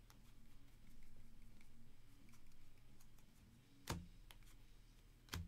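Faint handling of a stack of baseball trading cards as they are flipped one by one, with two sharp clicks about a second and a half apart near the end.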